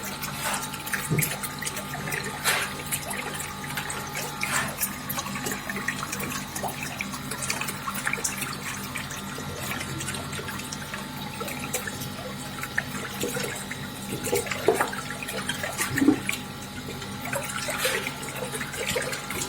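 Water running and splashing in a homemade ice-making machine, over a steady mechanical hum.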